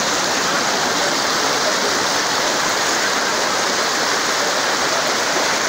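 Muddy floodwater rushing fast and turbulently across a road: a steady, unbroken noise of running water.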